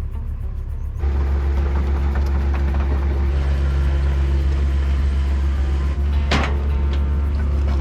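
A vehicle engine running steadily with a strong low drone, getting louder about a second in, with a single sharp knock about six seconds in.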